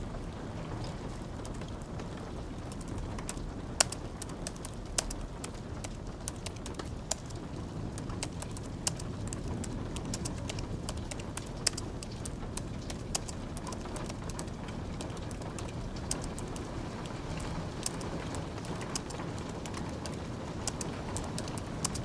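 Typing on a slim white Apple keyboard: quick, irregular key clicks, a few louder than the rest, over a steady bed of light rain.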